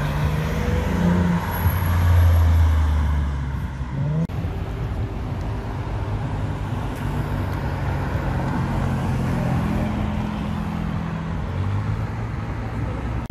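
Car engines passing on a city street. A loud, low engine note swells about two seconds in and breaks off abruptly. Then a red Ferrari's engine runs more steadily as it passes and pulls away, over traffic noise.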